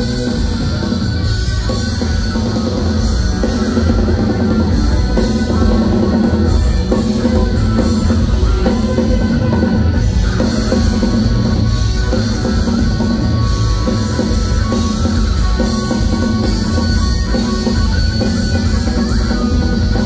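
Live shoegaze rock band playing loud and steady, with electric guitars, bass and drum kit.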